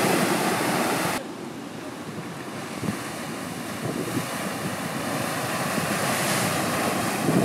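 Ocean surf: waves breaking and washing against a rocky shoreline. The wash drops abruptly about a second in, then slowly builds again.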